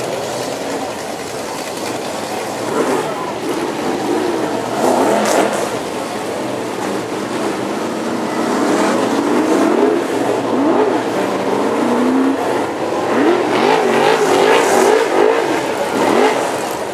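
A pack of BriSCA F1 stock car engines racing past, revving and lifting as they go round the bends. Many engine notes rise and fall over one another, getting louder about halfway through as the field comes by.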